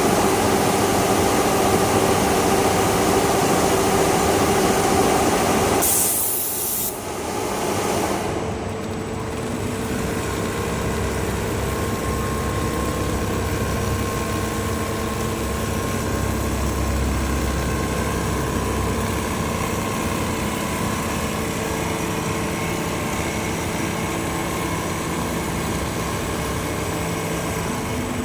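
Automatic duvet sewing machinery running with a steady mechanical hum. About six seconds in there is a brief burst of hiss, after which the machine sound settles into a different, steady hum.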